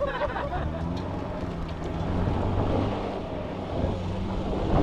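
Pickup truck engine running off-road, a steady low drone.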